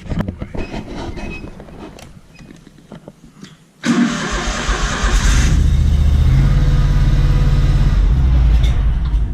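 Clicks and rattling, then about four seconds in a vehicle engine starts suddenly and runs steadily.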